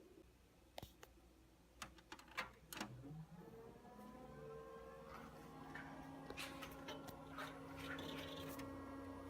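A few clicks of cables being plugged in, then a Gateway Essential 450 desktop computer powering on: its fans spin up with a rising pitch and settle into a steady hum with a few faint ticks.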